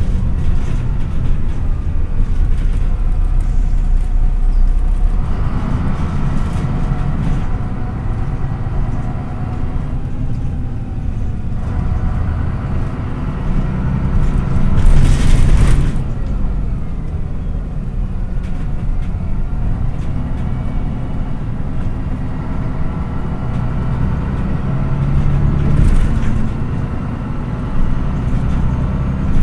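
Diesel engine of a MAN NÜ 313 city bus heard from inside while it drives, its pitch rising and falling as the bus speeds up and slows. About halfway through there is a short, loud hiss.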